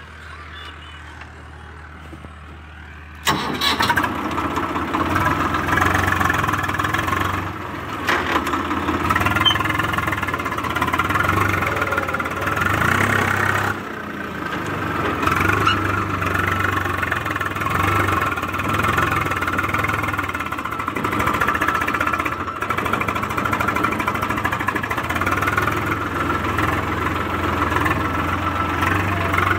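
A low steady hum, then about three seconds in a tractor's diesel engine starts and keeps running, its level rising and falling a little.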